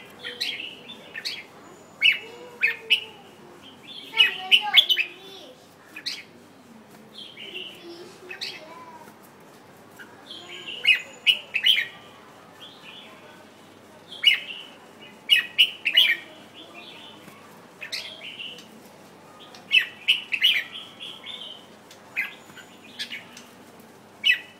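Red-whiskered bulbul singing: short, bright, chirpy phrases in clusters every second or two, with a couple of quieter pauses of a few seconds.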